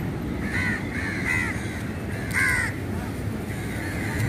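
Crows cawing: about four short, harsh caws, the loudest about two and a half seconds in, over a steady low rumble of surf and wind.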